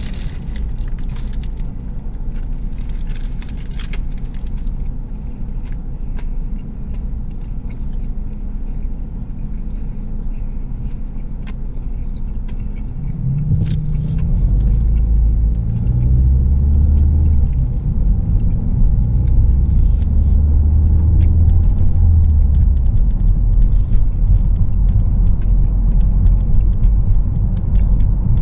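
Road and engine rumble inside a moving Ford Focus's cabin. About 13 seconds in, the engine note rises as the car speeds up, and the rumble grows louder and stays louder.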